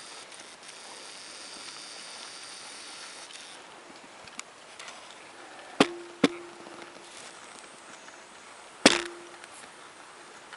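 Three sharp knocks, two close together about six seconds in and a louder one near the end, each with a brief ringing tone, over a faint hiss.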